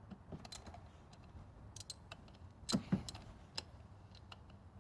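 Light metallic clicks, taps and scrapes of a spark plug and its socket tool against the engine as the plug is worked back into its threaded hole, with two louder knocks around the middle.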